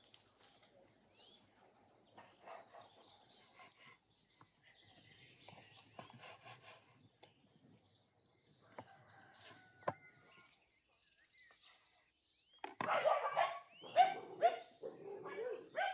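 Faint birdsong with a few light clicks. About three seconds before the end, a much louder stretch of pitched vocal sounds begins.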